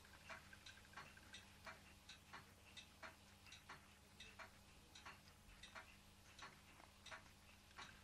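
Ross Yoke low-temperature Stirling engine running very slowly, its yoke linkage and bearings giving faint, light ticks about two to three times a second, slightly uneven.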